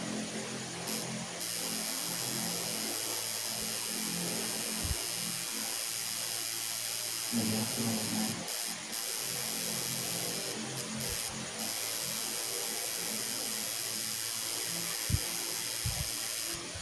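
Electric tattoo machine buzzing steadily as the artist works the needle into skin. It comes up to full speed about a second in and cuts out briefly a few times in the middle.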